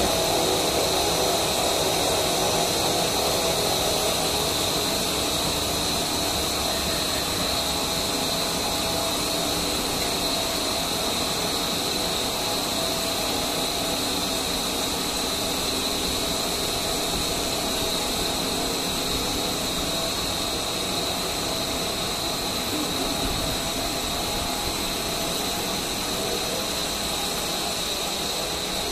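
Welding wire drawing machine running, its capstan drums and drive motors giving a steady mechanical hum with a high, steady whine.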